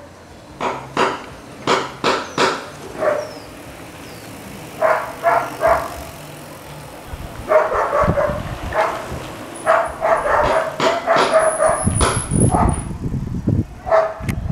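A dog barking repeatedly: scattered single barks in the first six seconds, then a fast, almost unbroken run of barks from about seven seconds in, with low rumbling noise underneath.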